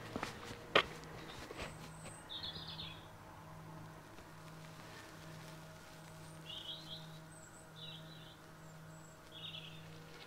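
Small birds chirping outdoors, four short chirps spread through the later part, over a faint steady low hum. A few footsteps and one sharp click come in the first two seconds.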